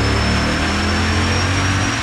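Dodge Ram's 5.7-litre Hemi V8, with its stock airbox and filter, running steadily at low speed on a chassis dyno, with a thin high whine over it that rises slightly.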